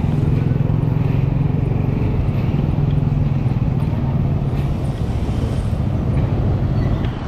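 A motor vehicle's engine running steadily at a constant speed, with road noise. The vehicle is travelling along a city street.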